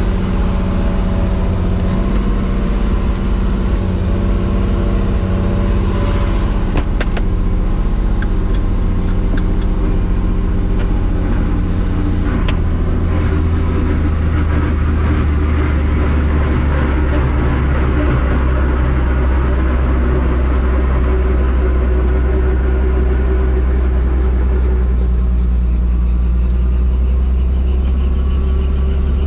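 Helicopter running: a loud, steady engine and rotor drone with a deep hum that grows stronger about halfway through.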